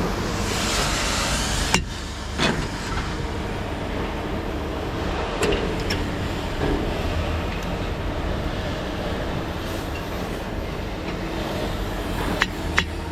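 A steady rumble of running machinery, with a few sharp metallic knocks and clicks, several of them close together near the end.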